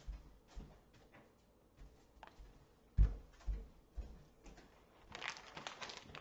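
Footsteps on a floor, about two a second, the loudest about three seconds in. A short rustle follows near the end as a plush toy is handled.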